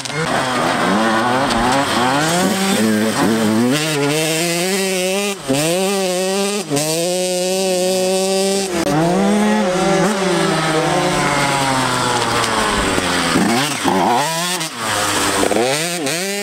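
85cc two-stroke motocross bike engines revving hard, the pitch climbing and dropping again and again as the riders open the throttle and shift or back off.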